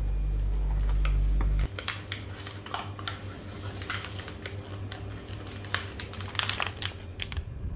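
A low hum for about the first second and a half that stops abruptly, then a run of light, irregular clicks and taps of kitchen items being handled.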